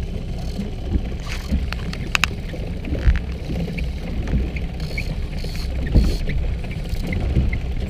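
Boat's outboard motor running slowly at trolling speed, a steady low rumble, with water against the hull. A few sharp clicks come about two seconds in, and low thumps about three and six seconds in.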